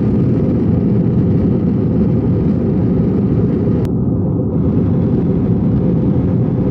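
Loud, steady low rumble of a jet airliner heard from inside the cabin.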